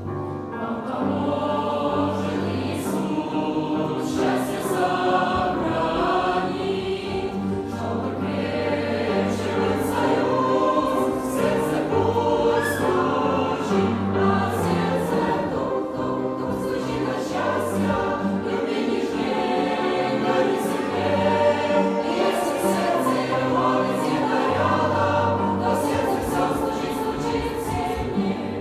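Choir singing a Christian song with instrumental accompaniment and a sustained bass line.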